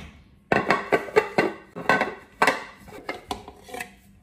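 Irregular light knocks and clatter of kitchenware being handled and set down, about a dozen taps in a few seconds.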